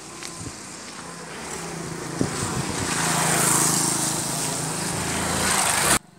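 A motor vehicle's engine running close by, getting louder from about two seconds in with a rushing noise over a steady hum, then cut off abruptly near the end.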